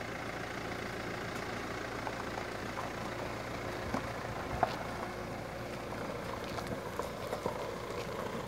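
Fiat Toro pickup's engine running steadily as it climbs slowly up a dirt track, with a few small clicks and crunches, the sharpest about four and a half seconds in.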